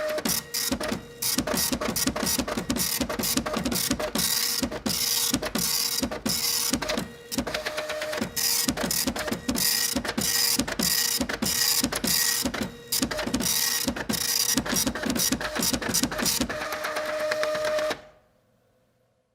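Printer running, with a fast rattle of mechanical strokes about three times a second and a steady motor whine underneath. It stops near the end and dies away.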